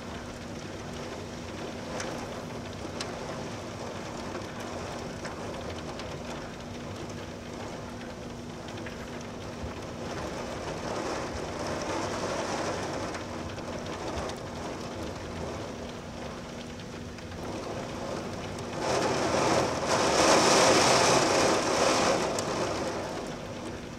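Steady tropical-storm rain with a low steady hum beneath it. About nineteen seconds in, a louder rush of noise swells up, holds for a few seconds and fades.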